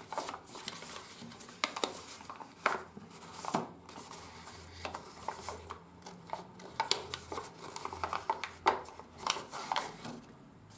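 Sheet of 80 g/m² office paper being creased and shaped by hand: irregular crinkling and rustling with scattered small snaps as the folds are pressed.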